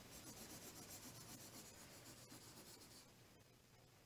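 Faint scratching of a coloured pencil shading on drawing paper: a quick run of back-and-forth strokes that fades out after about three seconds.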